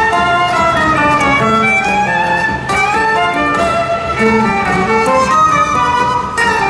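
Live violin playing a melodic lead line over acoustic guitar and upright double bass accompaniment, in a jazz-style arrangement of a Ukrainian folk song.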